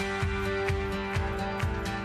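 Background music with a steady beat and sustained instrumental tones.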